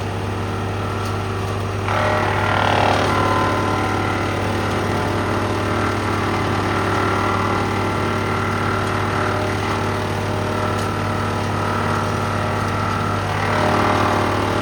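Woodland Mills WC88 wood chipper and its tractor running steadily. It grows louder and harsher twice: about two seconds in for a couple of seconds, and again near the end.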